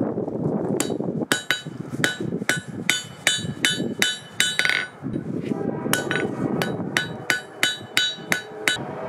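Hand hammer striking a glowing carbon steel bar on an anvil, each blow with a bright metallic ring. The blows come at about three a second, with a short break near the middle, over a steady low rushing noise.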